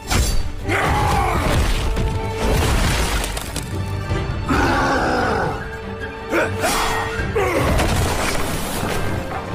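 Loud music with crashing and shattering sound effects.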